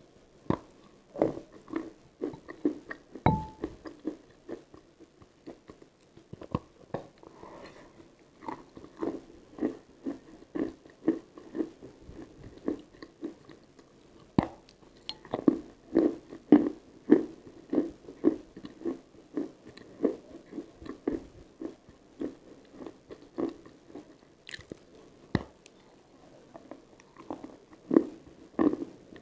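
Close-miked biting and chewing of dry, crunchy chalk: a long run of crisp crunches, one or two a second.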